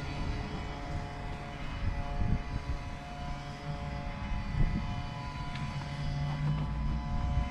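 A steady mechanical drone holding several fixed tones over a rough low rumble, like an engine running.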